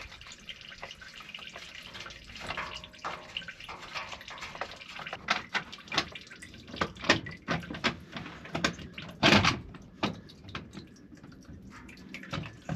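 Diesel fuel dripping and trickling from the opened fuel filter housing into a drain pan. Scattered clicks, knocks and scrapes come from the housing being worked loose by hand, with the loudest scrape about nine seconds in.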